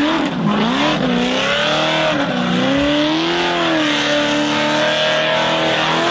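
Engine of an extreme hill-climb buggy revving hard, its pitch swooping down and up again and again as the spinning wheels dig into loose dirt, with a steady rush of spinning tyres and flung soil.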